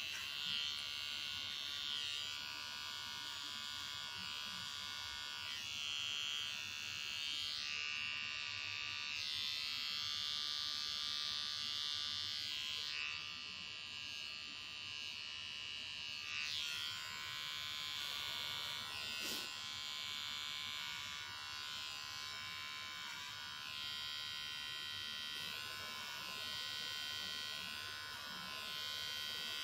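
Small electric pet hair trimmer running steadily with a high-pitched buzz, its pitch wavering slightly now and then, as it trims the fur on a cat's paws.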